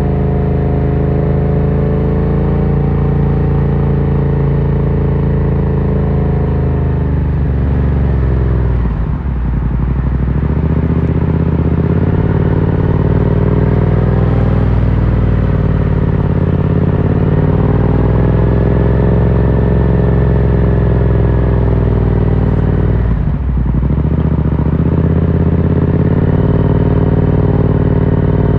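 Yamaha MT-07's parallel-twin engine running through an Akrapovic carbon full exhaust while the bike is ridden, its note holding fairly steady and drifting gently in pitch. Twice the note dips briefly and picks up again.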